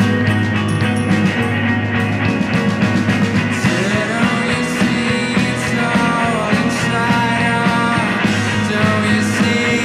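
Live rock band playing, with a steady full band backing. A male lead vocal sings over it from about four seconds in.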